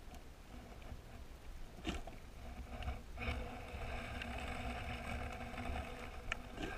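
Underwater ambience: a low muffled rumble with scattered sharp clicks. About two seconds in, a steady mechanical hum at several fixed pitches sets in and holds, briefly dropping out near the three-second mark.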